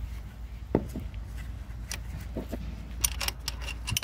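Socket wrench on an extension bar loosening a 13 mm nut on a car's starter motor: scattered knocks and scrapes of the tool against metal, then a run of quick ratchet clicks near the end.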